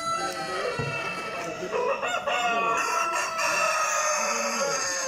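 Chickens in a crowd: many roosters crowing over one another, with hens clucking.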